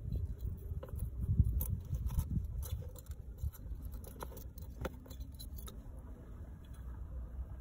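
Wet, rusty hand saw blade being handled as a wire is unwound from it: scattered light metallic clicks and ticks over a low rumble.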